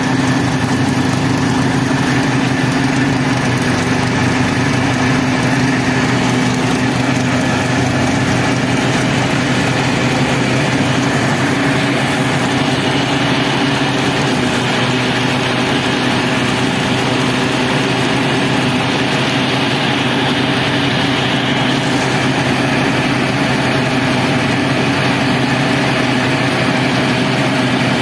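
Tractor-driven groundnut thresher running steadily: the Mahindra tractor's diesel engine and the thresher's machinery make one even, unchanging drone.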